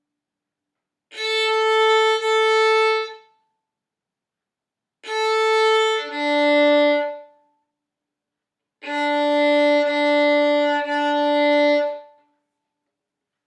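Violin playing slow bowed notes on the open A and D strings in a beginner's rhythm exercise, with rests of silence between the groups. It plays an A, then an A moving to a D, then three Ds in a row.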